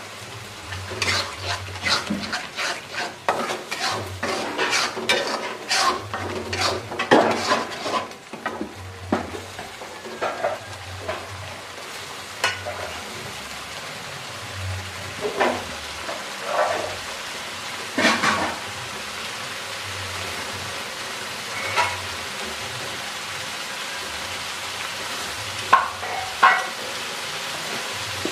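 Metal spatula scraping and clinking against an aluminium wok as a thick chili spice paste with sweet soy sauce is stirred. The clatter is busy for the first several seconds, then thins to a few scattered clinks and knocks over a steady sizzle.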